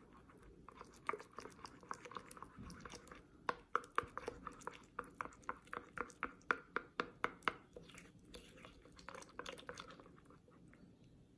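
Wooden craft stick stirring and mashing soaked rice paper in a small ceramic bowl, giving a run of soft wet clicks, about three or four a second, busiest from about three seconds in until near the end. The rice paper has soaked up the water and is turning into a thick, sticky glue.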